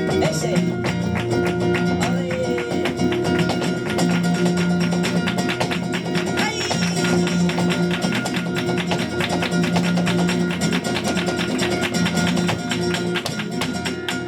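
Live flamenco fandango: guitar with a dense, rapid run of sharp percussive strikes over steady low notes.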